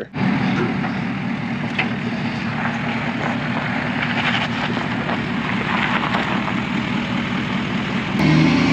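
Ford Super Duty pickup's Power Stroke diesel engine running steadily at low speed as the truck creeps over rough dirt. It gets louder near the end.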